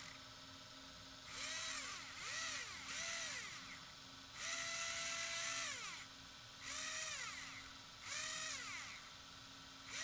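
Arrma 4S BLX brushless motor spinning unloaded on newly fitted sealed bearings, which replaced seized ones, in short throttle blips. About six rising whines each coast back down, one held for about a second and a half. A faint steady hum runs underneath.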